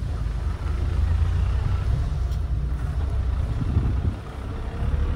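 Car driving on an unpaved dirt track: a steady low rumble of engine and tyres.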